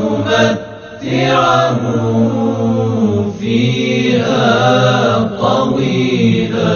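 Religious chanting by a low voice in long, held melodic phrases that break briefly between lines.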